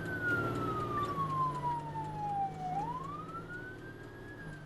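Ambulance siren on a slow wail: the pitch falls for nearly three seconds, rises back up, then starts to fall again, heard from inside the ambulance over a low steady hum.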